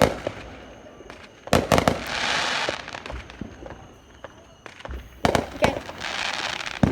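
Fireworks going off in two bursts, each a cluster of sharp bangs followed by about a second of crackling hiss.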